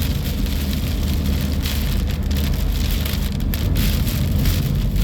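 Rain hitting a moving car, with a steady low rumble of road and engine noise, heard from inside the cabin.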